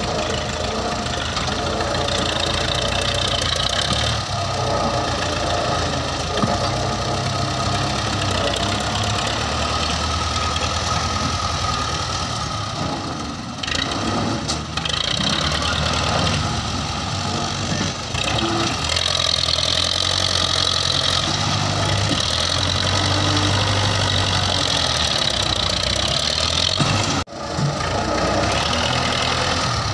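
Belarus tractor's diesel engine running steadily under load as its front loader pushes against an overturned tipping trolley to right it.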